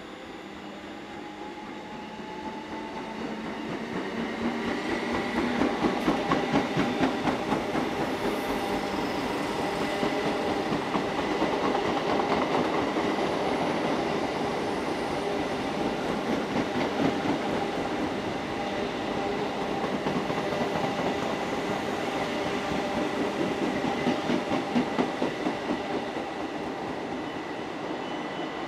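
Class 325 electric postal multiple unit running through a station: a steady rumble of wheels on rail, growing louder over the first few seconds, with clickety-clack as the wheelsets cross rail joints, loudest about six seconds in and again near the end.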